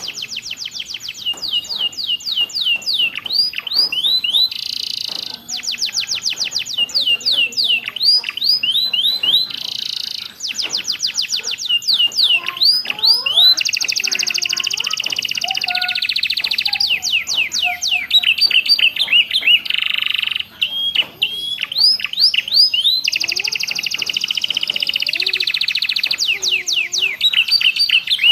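Domestic canary singing continuously, its song filled with phrases copied from prinias (ciblek and prenjak). The song goes in runs of quick falling whistles that alternate with long, fast buzzing trills.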